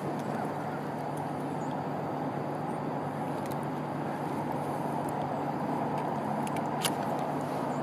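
Steady low rushing background noise with a few faint clicks near the end.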